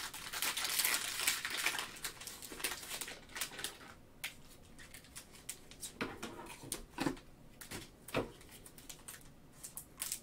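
Foil trading-card pack wrappers crinkling and crackling as they are picked up and handled: a dense crinkle in the first two seconds, then scattered crackles and ticks.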